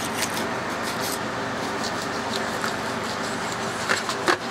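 A steady mechanical rushing noise, with a few light clicks near the end from the knife against the chicken and the cutting board.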